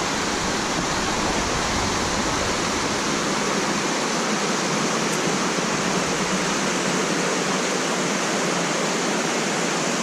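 A mountain creek rushing, a steady loud wash of water.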